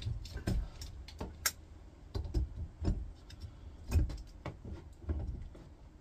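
Irregular clunks, clicks and knocks as a microwave-oven transformer and metal tools are handled and set down on a bench vise, a few with a dull low thud under them.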